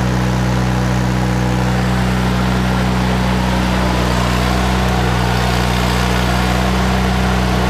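Miller Bobcat 250 engine-driven welder-generator running at a steady, unchanging drone while it powers a welding arc.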